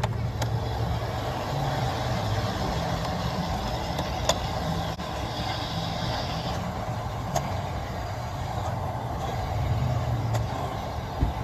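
G-scale garden railway train running on its track, heard from a camera riding on board: a steady low rumble of motor and wheels, with a sharp click every few seconds.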